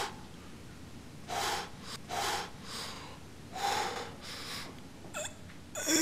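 A person's heavy breathing: a series of short, noisy breaths, about one a second.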